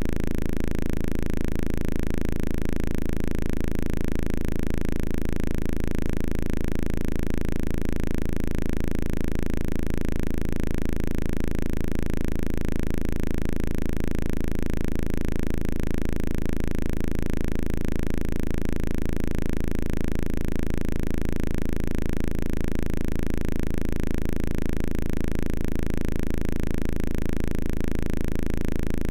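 Apple II one-bit speaker buzzing in a steady low drone with a fast rhythmic grain, unchanging throughout.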